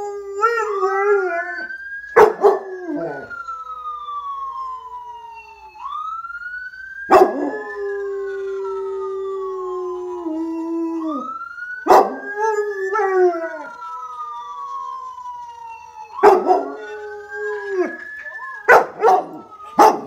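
A dog howls along with a passing ambulance's wailing siren. The siren's tone slowly rises and falls in a cycle of about five seconds, while the dog gives several long howls that drop in pitch at the end. Some howls open with a short, sharp bark.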